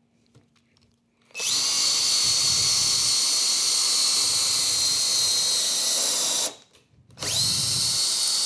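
Hercules HC92K1 20 V brushed cordless hammer drill, in drill mode, boring into a wooden board with a 5/32-inch bit. The motor spins up with a short rising whine and runs steadily for about five seconds, stops, then starts again about a second later.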